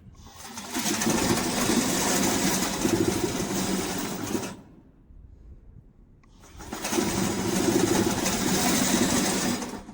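A remote-control crawler mower travelling on its brushless electric track motors and gearboxes, with the engine off. There are two runs with a pause between them: the first lasts about four seconds, and the second starts about six and a half seconds in and lasts about three.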